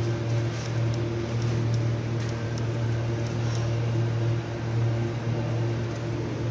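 A steady low machine hum with a fainter steady tone above it, like a fan or cooling unit running, with a few faint light clicks from the monitor's front-panel buttons being pressed.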